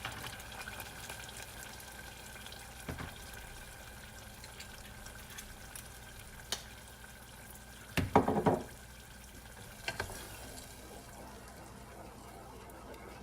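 Ketchup-based barbecue sauce sizzling and simmering in a pan on the cooktop, with a few single clicks of a utensil and a short clatter about eight seconds in.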